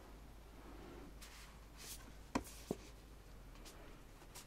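Quiet rustling of glossy postcards and photobook pages being handled and leafed through by hand, with two sharp little clicks about a third of a second apart, a bit past halfway.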